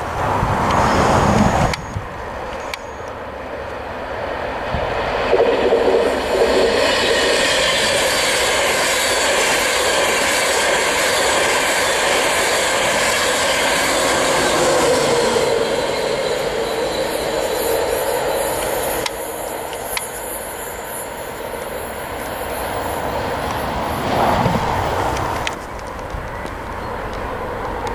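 An East Coast InterCity 225 electric express, Mk4 coaches behind a driving van trailer, passing at speed on overhead-wired main line. Its wheels and air rush build to a loud steady pass, then ease off in the last third.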